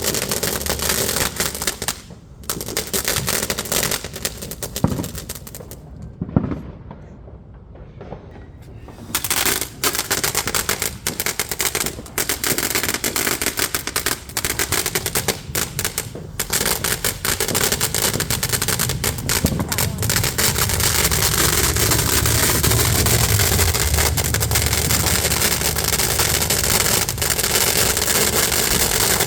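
Fireworks going off in rapid succession: a dense rattle of sharp pops and crackles like strings of firecrackers. There is a lull about a quarter of the way in, then the crackling builds back into a nearly continuous rattle.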